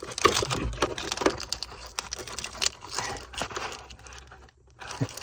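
Irregular plastic clicks and rustling as a wiring connector is worked loose from a small blue module under a pickup's dash and the module is handled.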